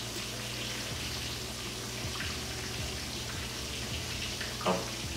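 Fish frying in hot coconut oil: a steady crackling sizzle. A brief voice sound near the end is the loudest moment.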